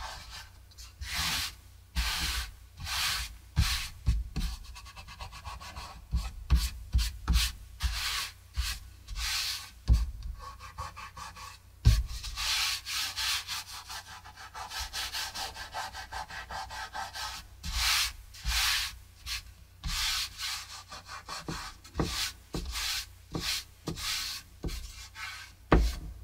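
Fingers rubbing dried masking fluid off cold-pressed watercolor paper: repeated, irregular swishing strokes, with a few sharper thumps, the loudest about ten and twelve seconds in.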